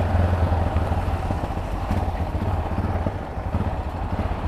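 Yamaha XT 660 motorcycle's single-cylinder engine running at a steady, low speed while riding in traffic, easing off slightly about three seconds in.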